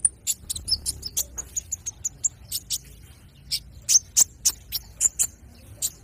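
Sunbird (konin) calling: a string of sharp, very high chips and short twittering notes, spaced unevenly.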